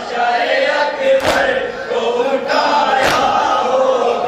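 Men chanting a noha, a Shia mourning lament, in unison, with the crowd's matam (chest-beating) landing together as a loud slap about every two seconds; two strikes fall here, a little over a second in and about three seconds in.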